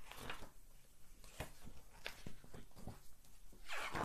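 A paperback picture book being handled and opened: scattered light taps and paper rustles, with a louder rustle of turning pages near the end.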